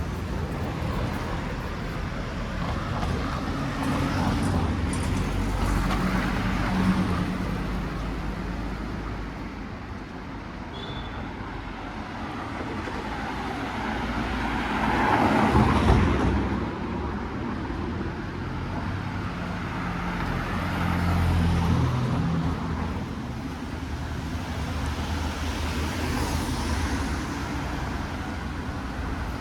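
Street traffic: motor vehicle engines running past, with one vehicle passing close about halfway through and another a few seconds later.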